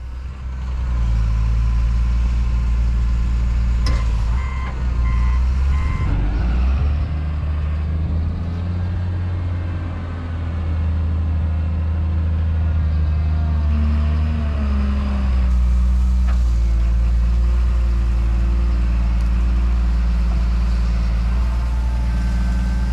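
Heavy diesel machinery running: a John Deere 644K wheel loader's engine rising and falling in pitch as it scoops and loads, with about four reversing beeps around four to six seconds in.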